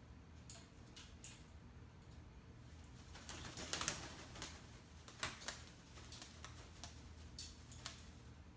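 African grey parrot splashing in her water bowl: scattered small splashes and clicks, with a busier flurry of splashing about three to four seconds in.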